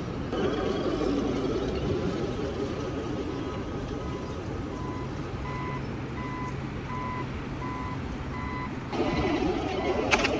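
Reversing beeper of a scale RC truck, a regular run of short electronic beeps about two a second, over the steady hum of the model running. Louder driving noise from the model comes in near the end.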